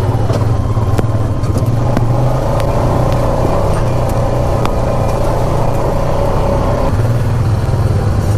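ATV engine running steadily under way on a rough trail, with a higher tone coming in about two seconds in and dropping out near the end, and scattered sharp clicks.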